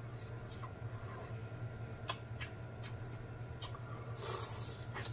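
Close-miked eating sounds from a sauced lobster tail: a few faint, sharp mouth clicks and smacks, then a short wet bite-and-slurp about four seconds in, over a steady low hum.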